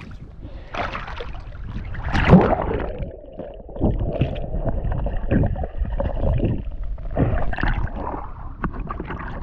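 Sea water splashing over a swimmer's action camera as it dips under the surface, then muffled underwater gurgling and bubbling. The loudest splash comes about two seconds in, and there are more splashes as it comes back up near the end.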